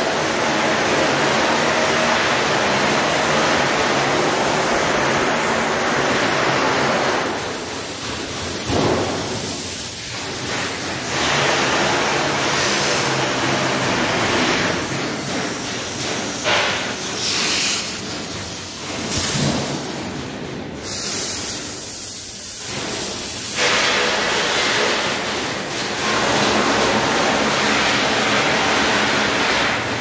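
CNC laser sheet-metal cutting machine running, giving a loud steady hiss with a faint low hum beneath it. The hiss drops lower for several seconds past the middle and comes back up near the end.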